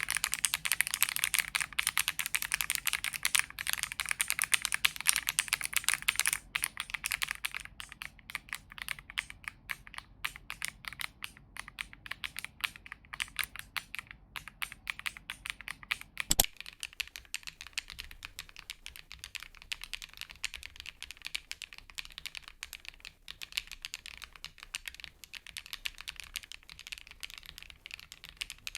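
Typing on a KiiBoom PHANTOM81 V2 transparent mechanical keyboard, with a fairly high-pitched, clacky 'kotokoto' keystroke sound. The typing is fast and dense at first and turns slower and lighter after about seven seconds.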